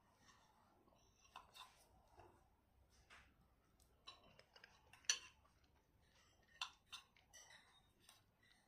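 Quiet sounds of someone eating a meal: a scatter of small clicks and light scrapes, the sharpest one about five seconds in.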